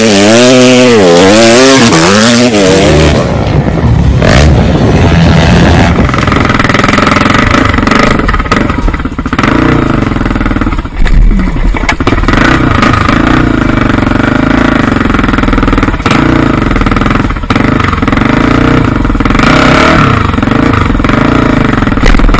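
Dirt bike engine, loud: revved up and down in quick swings for the first few seconds, then after a change about four seconds in, a dirt bike running steadily under throttle with brief dips.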